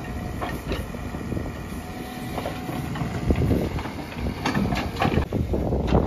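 Tata Hitachi backhoe loader's diesel engine running under load as the backhoe arm pushes and levels soil, with scattered short knocks.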